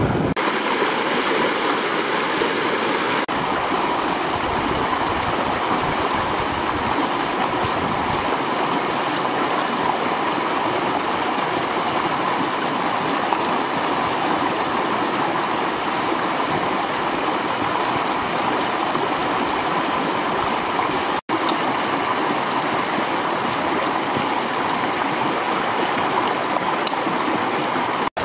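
Shallow rocky river rushing and gurgling over stones in small rapids, a steady even noise, cut off for an instant about three-quarters of the way through.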